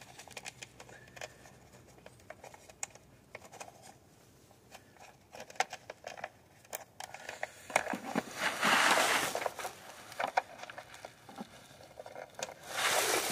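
Gloved hands handling and feeding a wire along the cowl under the hood, giving faint rustles and small clicks. Louder rustling brushes about eight seconds in and again near the end, from a jacket sleeve rubbing close to the microphone.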